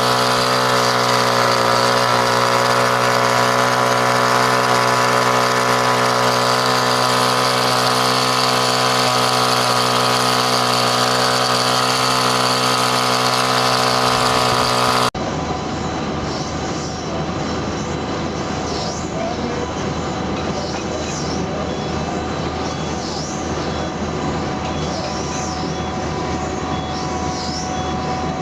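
A machine running steadily with a constant, even drone, then an abrupt cut about halfway through to a different, noisier machine sound with faint high squeaks repeating about once a second.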